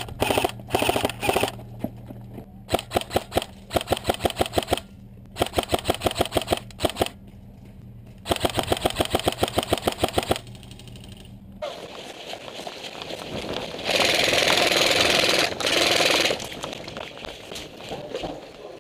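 Airsoft electric gun (AEG) firing in rapid full-auto bursts, about five strings of quick pellet shots over roughly eleven seconds. The firing then stops and gives way to a rushing noise that is loudest for about two seconds.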